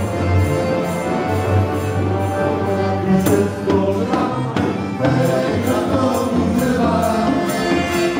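A live band playing an upbeat instrumental passage of a Polish popular dance tune, with sustained melody and bass notes over a steady percussion beat.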